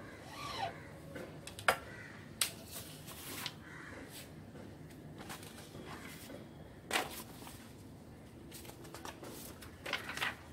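A wooden silkscreen printing frame and squeegee being worked by hand: a few sharp knocks and clicks at irregular intervals, with paper rustling as the printed card is lifted off the screen.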